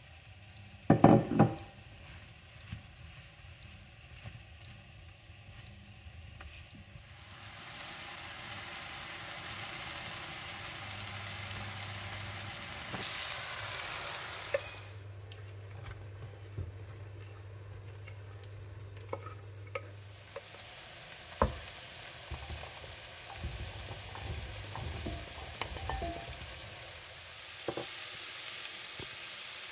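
Sliced wild mushrooms sizzling as they fry in a pan, stirred with a utensil that gives scattered clicks and taps. There is a loud knock about a second in, and the sizzle grows louder after several seconds.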